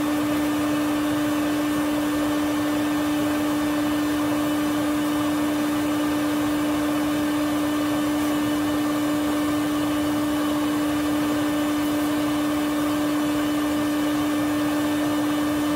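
Shop vac running steadily with its hose stuck in a car's tailpipe, drawing suction through the exhaust system: an even motor hum with a held whine over the rush of air.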